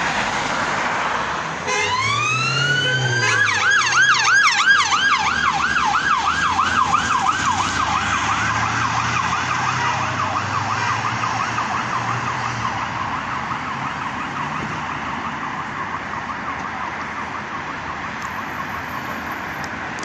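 Police car siren starting about two seconds in with one rising wail, then switching to a fast yelp that sweeps up and down about three times a second, slowly fading away. Steady road traffic runs underneath.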